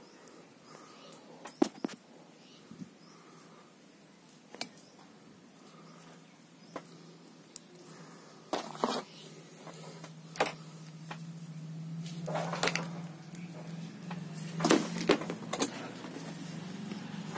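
Handling noise from unboxing a laptop: sharp clicks and knocks as a plastic AC power adapter and its cable are turned over in the hand, with louder rustling of packaging paper in the second half. A low steady hum comes in about six seconds in.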